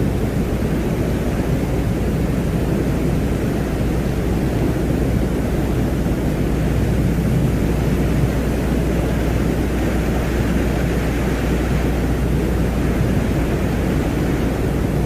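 Steady, dense low-pitched noise over a constant deep hum, with no breaks or events: an ambient space soundscape presented as the sound of the planet Venus.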